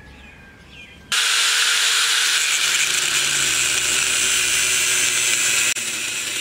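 Angle grinder with a cut-off disc cutting into a steel shackle, starting suddenly about a second in as a loud, steady grinding hiss. The grind drops a little in level near the end.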